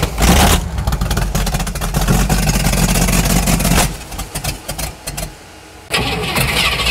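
Open-exhaust V8 engine in a pickup bed, with a Demon carburetor, running loudly with a deep rumble. About four seconds in it falls away, and the loud running comes back suddenly near the end.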